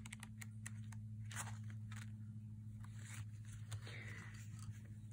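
Paper pages of a small planner insert being flipped and handled: a faint run of light ticks and short rustles.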